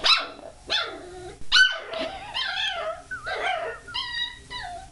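Puppy barking at a toilet plunger in a run of about seven high, squeaky yips, a few of them drawn out into a wavering whine: the fearful barking of a puppy that is afraid of plungers.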